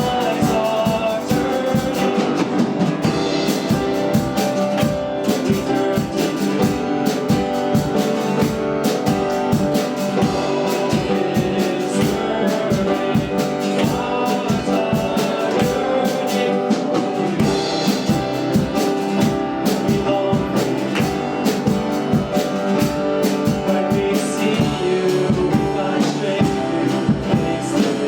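Live church worship band playing a song, with a drum kit keeping a steady beat under guitar.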